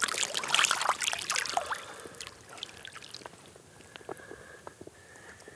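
Water splashing and dripping, busiest in the first two seconds and thinning out to scattered drips.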